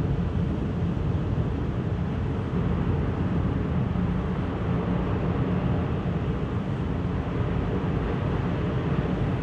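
Steady low rumble of a car ferry's engines, heard from inside a vehicle on the car deck.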